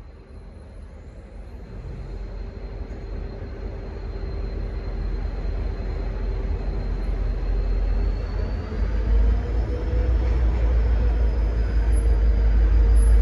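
Diesel-electric locomotive of V/Line's N class running, a deep rumble that grows steadily louder throughout, with a few steady engine tones above it.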